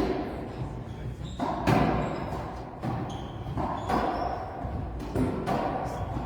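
Racquetball rally: a string of sharp knocks, one or two a second, as the ball is struck by racquets and hits the court walls, ringing in the hall. Short high squeaks come in between.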